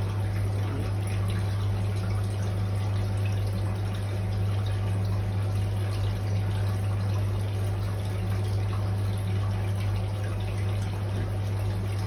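Turtle tank filter pump running: a steady low hum with water trickling and splashing from its outflow into the tank.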